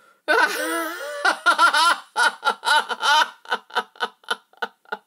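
A woman laughing: a long fit of quick 'ha' bursts that begins loud and breaks into separate, fading pulses toward the end.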